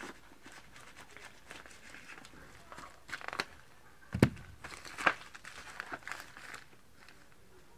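Silver plastic mailer bag crinkling and tearing as it is opened by hand, in a run of scattered rustles, with one sharp knock a little past halfway that is the loudest sound.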